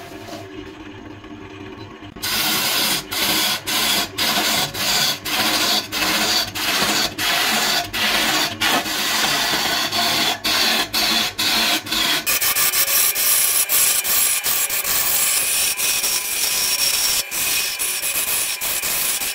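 Hand-held turning tool cutting into a coconut-wood blank spinning on a wood lathe: a loud scraping hiss of shavings being peeled off. The cutting starts about two seconds in and breaks off briefly about twice a second as the tool is eased off and pushed back in, running more steadily after about twelve seconds.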